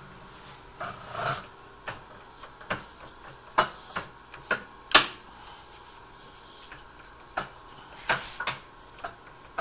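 Irregular metallic clicks and clunks from the gear-shift levers and headstock gears of a 1953 LeBlond Dual Drive lathe being worked by hand, the loudest about five seconds in. The gears are not meshing, so the spindle is not driven. Under it runs the steady hum of the running drive.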